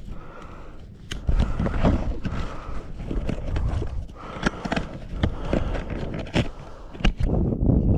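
Boots and hands scuffing and knocking on dry rock while scrambling, as irregular scrapes and sharp clicks over a low rumble of movement on the microphone.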